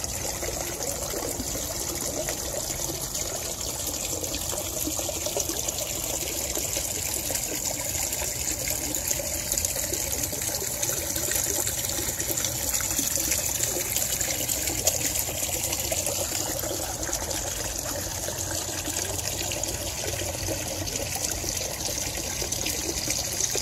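Water steadily trickling and splashing down a small artificial rock waterfall into a pond.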